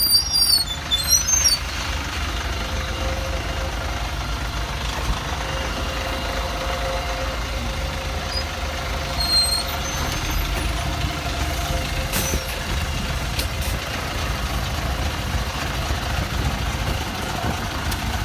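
A PAZ Vector Next city bus's engine idling with a steady low rumble at the stop, with a few high squeaks in the first second or two as it pulls up.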